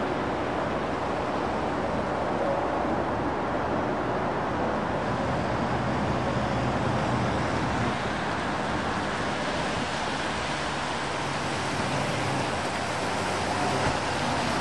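U-Haul box truck on a GMC cutaway van driving along a wet road toward the listener: its engine runs under a steady hiss of tyres on wet pavement, and the hiss grows over the second half as the truck comes closer.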